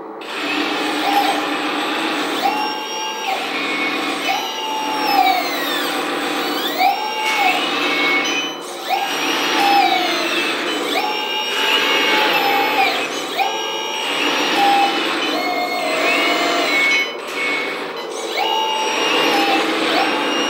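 RC articulated 6x6 dump truck being driven in short bursts under radio control: its drivetrain whines up in pitch, holds and winds down with each burst of throttle, a dozen or so times.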